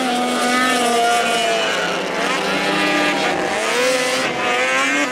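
Race car engine running at moderate, fairly steady revs, its pitch drifting gently up and down, as at caution-period pace before a restart.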